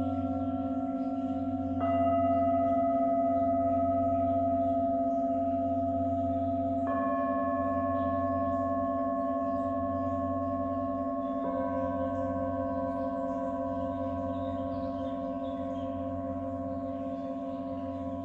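Tibetan singing bowls struck one after another with a mallet: three strikes about five seconds apart, each adding a new ringing tone over the long, slowly fading ring of the bowls struck before. The lowest tones waver slowly.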